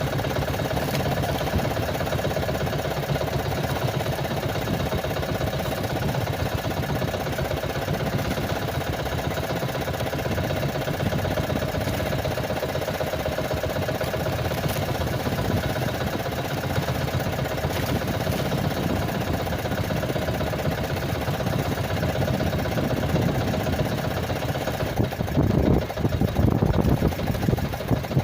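Small engine running steadily at idle. About three seconds before the end, louder uneven noise joins it.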